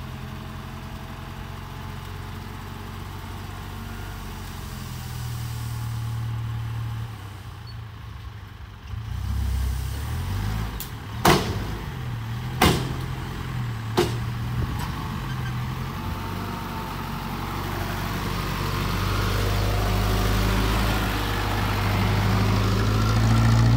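Dump truck's diesel engine (a J07C) running under load with the bed raised while tipping soil, with three sharp bangs in the middle. The engine grows steadily louder over the last several seconds as the truck pulls forward.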